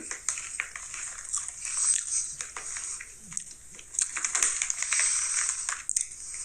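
Someone chewing Ruffles Queso Cheese ridged potato chips: a run of irregular crisp crunches and crackles.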